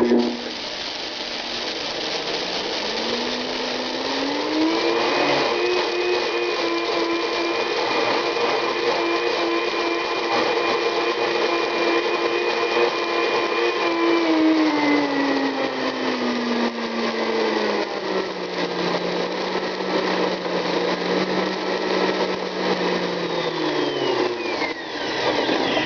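Blendtec blender grinding a dry mix of barley, oats, black oil sunflower seeds, alfalfa and wheat berries, its motor whine over a gritty grinding noise. The motor climbs to a high speed over the first few seconds and holds, steps down to a lower speed about two thirds of the way through, then winds down and stops near the end.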